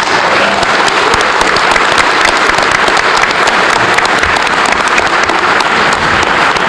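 Large audience applauding steadily: dense, continuous clapping from a hall full of people.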